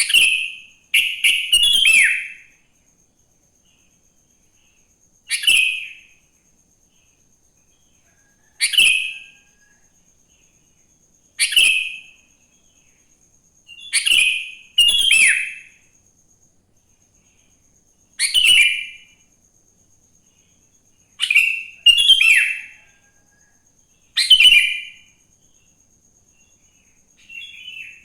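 Sooty-headed bulbul (kutilang) calling in short, loud chirpy phrases, one every two to three seconds, some given in quick pairs, with quiet gaps between.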